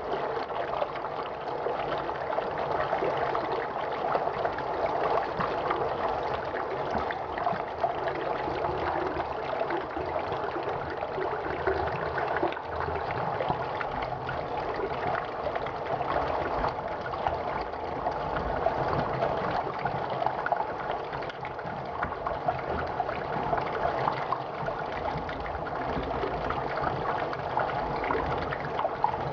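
Steady rush of running water, a continuous trickling, splashing flow with no pauses.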